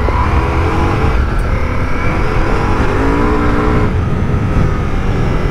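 Ducati Multistrada V4 Rally's V4 engine running while ridden off-road on a loose gravel track, its revs rising and falling, over a steady noisy rumble.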